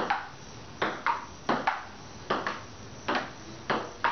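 Table tennis rally: a ping-pong ball clicking off the paddles and the table in quick alternation, about a dozen sharp clicks, some in close pairs, several with a short ringing ping.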